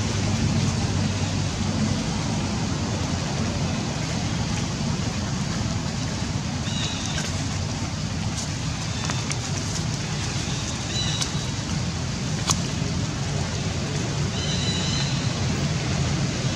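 Steady outdoor background noise: a low rumble under an even hiss, with a few short high-pitched tones and a few faint clicks.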